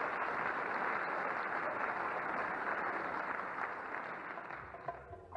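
Audience applauding steadily, the applause dying away near the end as a steel pan begins to play its first struck notes.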